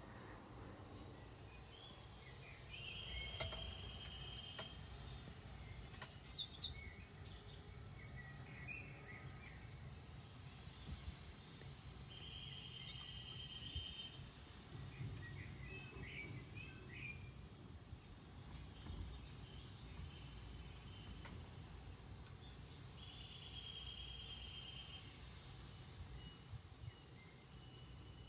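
Birds singing, one repeating the same short song about every ten seconds: a steady high note, then a quick run of high chirps. A faint low hum lies underneath.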